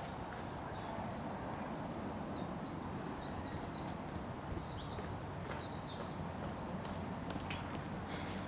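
Steady outdoor background noise with birds chirping, a quick run of short high notes through the first five seconds or so, then a few light taps near the end.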